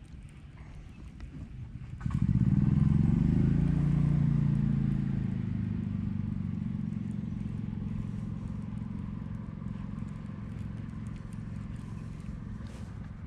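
An engine starts up suddenly about two seconds in and keeps running with a low, steady hum, loudest at first and then slowly fading.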